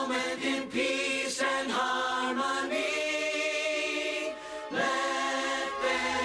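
Choir singing a slow hymn in long held notes, with no words clear. A low bass note comes in near the end.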